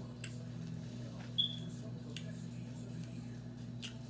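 Wet mouth clicks and smacks of someone sucking and eating a juicy mango, with one short high squeak about a second and a half in, over a steady low hum.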